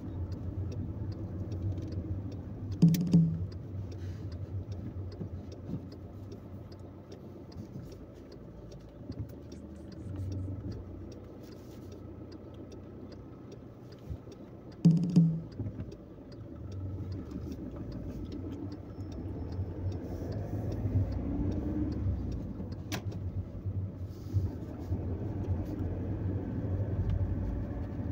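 Steady engine and road noise of a car being driven slowly, heard inside its cabin, with two short louder thumps about 3 and 15 seconds in.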